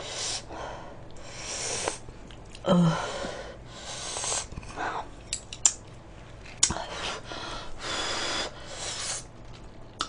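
A person breathing loudly, close to the microphone, in several short breaths while chewing a mouthful of food, with a brief hum about three seconds in and a small click about two-thirds of the way through.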